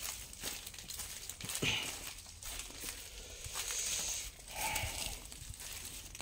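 Irregular crinkling and crunching with scattered small clicks, like debris or plastic being disturbed.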